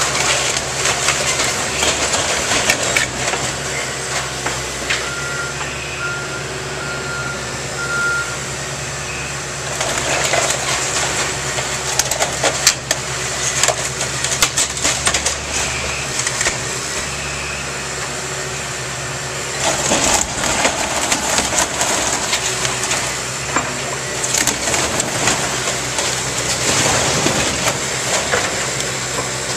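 Cat excavator's diesel engine running steadily while its bucket tears apart and crushes a wood-framed garage: cracking, splintering timber and crashing debris. The breaking comes in spells, heaviest about ten seconds in and again from about twenty seconds in.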